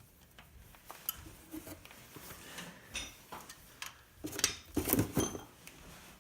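Metal hand tools clicking and clinking against each other and the engine while the head bolts of an LQ4 V8 are being torqued by angle. A cluster of louder metallic clanks comes about four to five seconds in.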